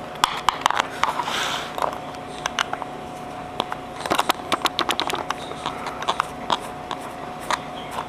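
Small screwdriver backing a tiny screw out of the quick coupler on a 1/50 scale Komatsu PC400 excavator model: irregular light clicks and scrapes in bunches, with a short scrape about a second in.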